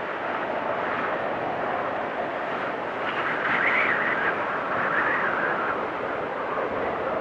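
Storm wind blowing steadily with a whistling howl that rises in pitch as it gusts, about halfway through and again shortly after.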